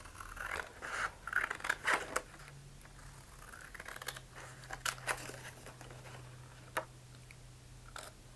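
Scissors snipping through a thin water-transfer decal sheet: a quick run of small cuts in the first two seconds, then a few single snips spaced out near the end.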